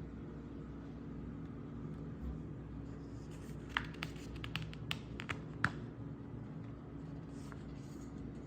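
A quick run of small clicks and taps from hands handling the album's packaging, over a steady low hum.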